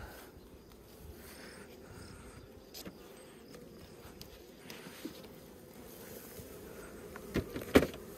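Honeybees buzzing in a steady hum around an open hive. Two sharp knocks come near the end.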